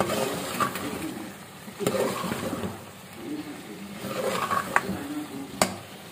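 Steel spoon stirring and scraping chicken korma with potatoes in an aluminium pot as it fries at the bhunai stage, the oil already separated, with sizzling and a few sharp clinks of the spoon against the pot.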